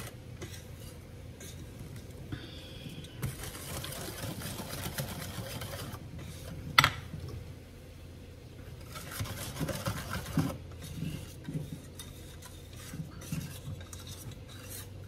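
Wire whisk stirring rice-flour batter in a stainless steel bowl, the wires scraping and clicking against the metal, with one sharp clink about seven seconds in.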